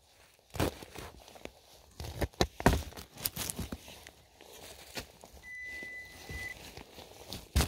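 Small folding shovel digging into leaf-covered forest soil: a series of short crunching and scraping strokes, the loudest a little under three seconds in. A brief steady high beep sounds for about a second later on.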